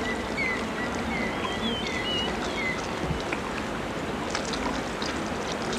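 Steady outdoor ambience from a dry riverbed, a constant even hiss with faint, short high chirps scattered through the first three seconds and a few light clicks later.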